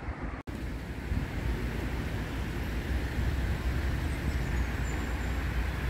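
Steady low rumble of road traffic, broken by a brief cut-out about half a second in.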